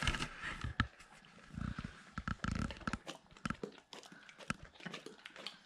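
A Doberman licking and smacking her lips at cake smeared on her nose: irregular wet clicks, with a few soft low thumps in the first half.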